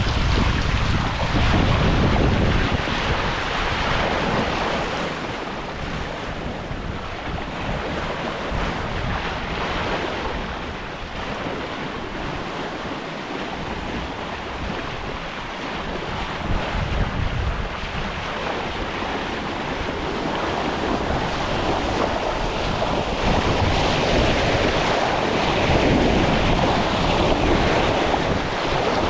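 Sea and wind around a sailing yacht under way: a steady rush of waves and water with wind buffeting the microphone, swelling and easing over several seconds at a time.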